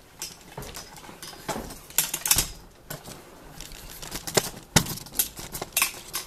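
Irregular knocks, taps and rustles of someone climbing a ladder and moving about at the top with a camera in hand, with handling noise on the microphone. The loudest knocks come about two seconds in and again around four and a half to five seconds.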